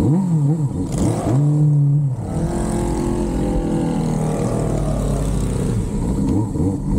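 Motorcycle engine revved in short blips, held at a higher pitch for about a second, then falling back over a couple of seconds to a steady low run.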